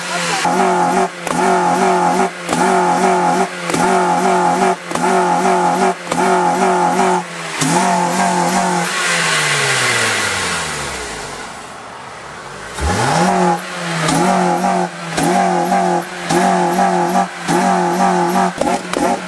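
Car engine revved hard with the accelerator pumped in quick, repeated blips that keep it high. About eight seconds in the revs fall away slowly, then near thirteen seconds it is revved up sharply and pumped again.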